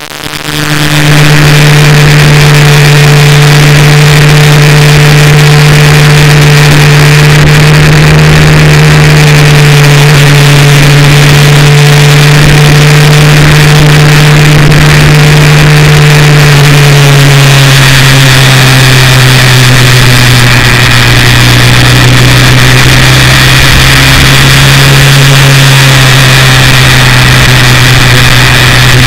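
Benelli TRK 502's parallel-twin engine running steadily at cruising speed under a loud rush of wind and road noise. Its pitch drops slightly about two-thirds of the way through, then holds steady.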